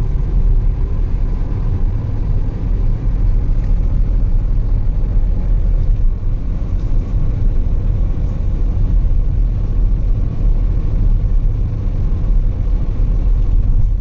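Steady low rumble of a car cruising on an expressway, heard from inside the cabin: engine and tyre noise.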